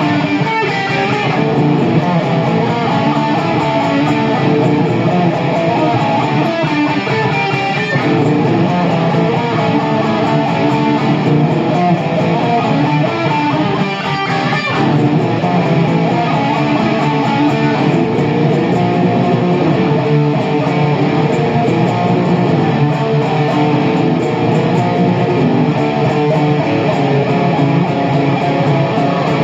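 Guitar music playing continuously at a steady loudness.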